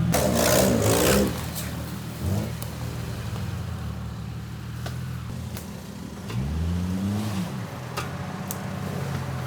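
Car engine running at low revs, with a loud burst of noise in the first second. The revs rise briefly about two seconds in, then rise and fall again about six to seven seconds in.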